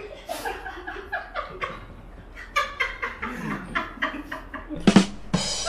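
Several people laughing and snickering in short, choppy bursts, with a loud sharp burst about five seconds in.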